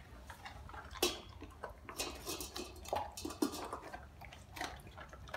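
A large dog crunching dry kibble from a stainless steel bowl: irregular chewing crunches with a few sharper clinks against the metal bowl.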